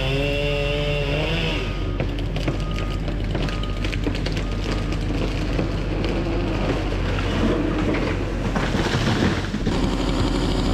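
Logging machinery running: a steady low engine drone with crackling and knocking, and a louder rushing stretch about nine seconds in.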